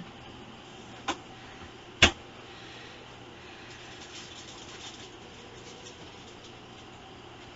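Two sharp knocks, about a second in and about two seconds in, the second much louder, then faint light ticking and scratching over a steady low hiss.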